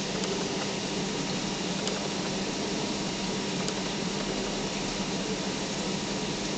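Steady hum and hiss of aquarium equipment running, with a low hum tone under an even wash of noise and a couple of faint clicks.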